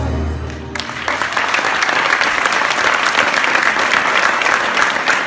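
Music ends about a second in. An audience then breaks into loud, sustained applause, many hands clapping at once.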